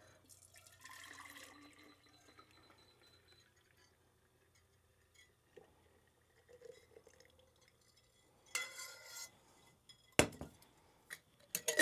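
Root beer syrup poured from a stainless steel saucepan into a glass mason jar, a faint trickle of liquid filling the jar. Near the end come a few clinks of metal and glass as the pot and its ladle are handled, the sharpest about ten seconds in.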